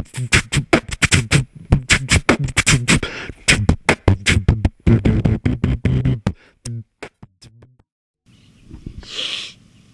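A man beatboxing a fast rhythm of mouth clicks, snare-like hits and low hummed bass notes, which stops about seven seconds in. A short hiss follows about nine seconds in.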